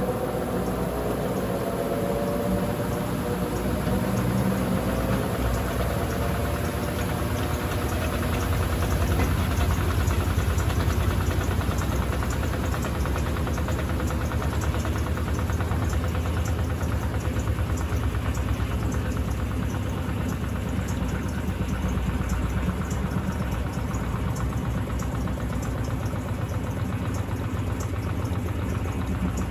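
Electrolux LTC15 top-loading washing machine running through its cycle: a motor whine that rises in pitch over the first few seconds, then a steady low rumble with a fast even pulse.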